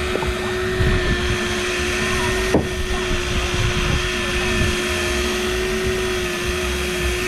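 Electric fishing reel winding line in under the load of a hooked fish, a steady motor whine, with wind rumbling on the microphone and a single click about two and a half seconds in.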